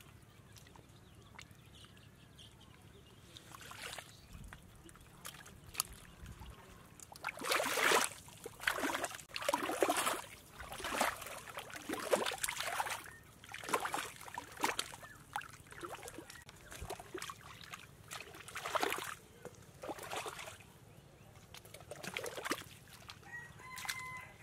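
Bare feet and hands churning through shallow liquid mud and water, making irregular sloshing splashes one after another after a quiet start of several seconds.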